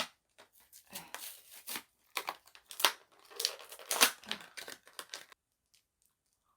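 Packaging being torn open and crumpled by hand: irregular crackling and rustling that stops abruptly a little over five seconds in.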